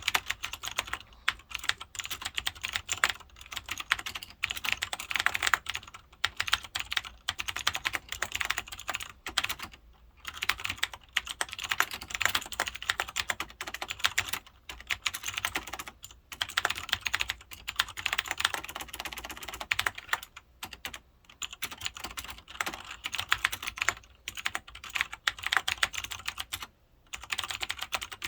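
Continuous typing on a Cherry G80-3000 mechanical keyboard with clicky Cherry MX Blue switches: a dense run of rapid key clicks, broken by a few short pauses.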